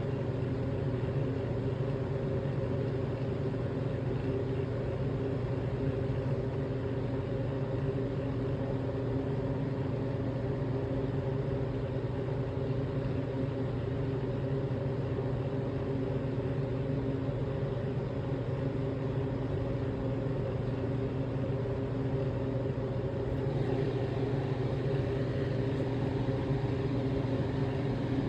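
Steady low mechanical drone with a constant hum, unchanging for the whole stretch; a little more hiss joins in about five seconds before the end.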